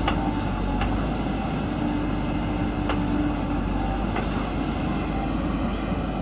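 Heavy diesel machinery running steadily with a low rumble, with a few faint knocks or clanks.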